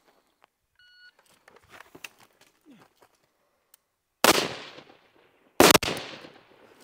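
A shot timer beeps once about a second in. Faint rustling and knocks follow as the shooter drops from standing to prone, then two AR-15 rifle shots about a second and a half apart, each trailing off in echo.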